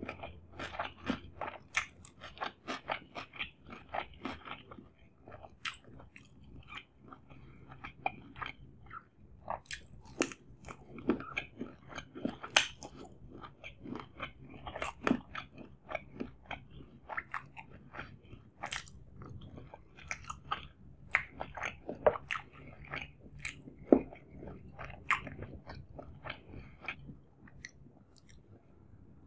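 Close-miked mouth sounds of a man eating chicken biryani by hand: steady, wet chewing with many quick crackling clicks. One louder click comes about three quarters of the way through.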